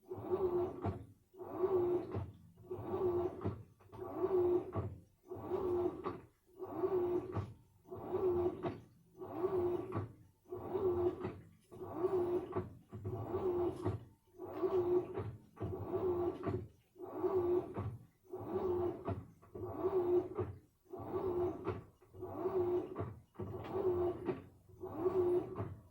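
Samsung washing machine running a wash cycle: the motor turns the drum in short strokes, each with a humming whine, repeating about every second and a third.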